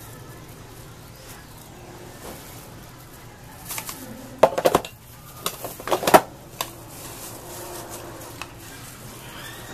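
Plastic tub and spoon knocking and clattering in a quick cluster about halfway through as toppings are scooped onto shaved ice, over a low steady background hum.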